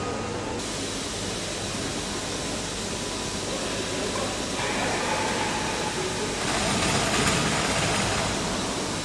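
Steady rushing noise of air-conditioning ventilation in an aircraft cabin. It grows brighter in steps and is loudest about two-thirds of the way through.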